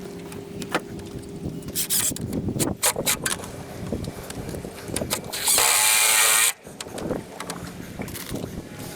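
A power drill runs in one burst of about a second past the middle, stopping abruptly, amid scattered knocks of work on wood.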